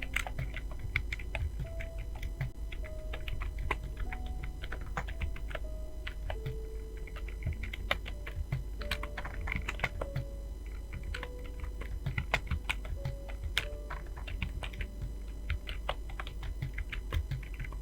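Fast, irregular keystrokes on a computer keyboard: continuous typing, with a few louder key strikes standing out. A faint melody of held notes plays underneath.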